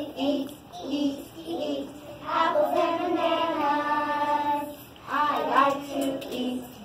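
Young children singing together, with one long held note in the middle.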